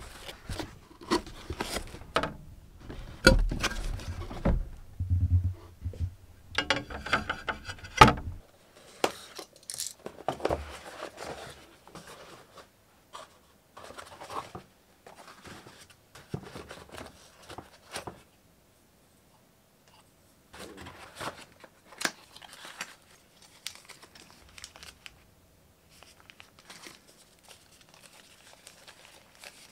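Unboxing handling noise: a cardboard accessory box and the tools in its foam tray being handled, with plastic packaging crinkling and tearing. The first eight seconds or so hold louder knocks and bumps. After that it settles into quieter, scattered rustling and taps.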